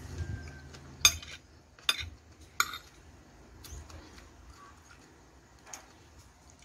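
Metal spoon clinking and scraping against a plate while scooping up rice and curry: three sharp clinks in the first three seconds, then a couple of fainter taps.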